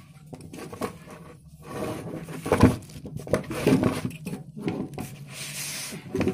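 Unboxing handling noise: packaging rustling, with scrapes and irregular knocks as the welding machine's cables and clamps are pulled out of the box. The sharpest knock comes about two and a half seconds in.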